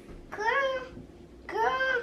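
A toddler babbling: two short, high-pitched vocal sounds, the first about half a second in and the second near the end.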